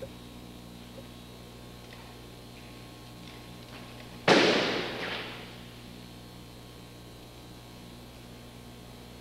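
An aikido partner being thrown hits the mat in a breakfall: one sudden loud slap about four seconds in, fading out over a second or so. A steady electrical hum from the old recording runs underneath.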